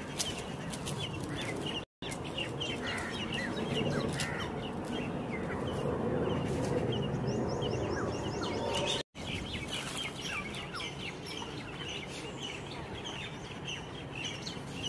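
Outdoor chorus of many birds chirping and calling in quick, overlapping short notes over a steady background of park ambience, cut off for an instant twice, at about two and nine seconds in.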